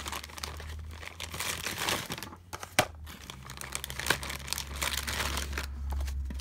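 Clear plastic packaging bags crinkling and rustling as hands handle them and pull paper punches out, with a couple of sharper clicks.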